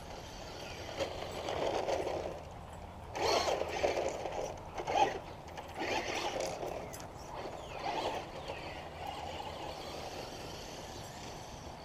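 Traxxas RC car driving over a grass lawn in about four bursts of acceleration, its motor rising and falling in pitch. The loudest run is a few seconds in.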